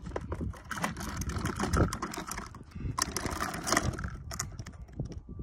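Hard plastic wheels of a toddler's ride-on push car rolling over a concrete driveway: an irregular rattling clatter of many small clicks.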